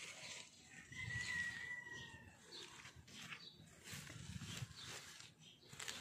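An animal call: one drawn-out high note, falling slightly, lasting just over a second, about a second in. Around it, leafy vines rustle as they are handled.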